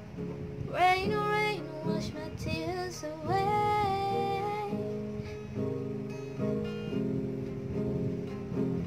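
A woman singing over an acoustic guitar playing chords. Her voice slides up into long held notes, stops about five seconds in, and the guitar carries on alone.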